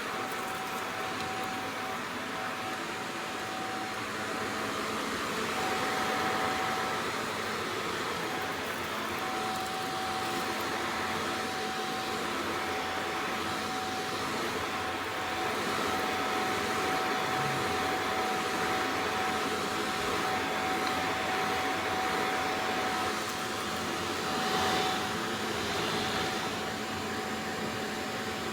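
Shark NZ801UKT upright vacuum cleaner running steadily: a constant motor whine over a rush of air, swelling slightly now and then.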